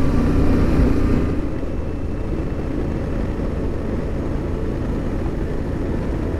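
Motorcycle on the move: steady engine drone mixed with wind rush, settling to a quieter, even rush a little over a second in.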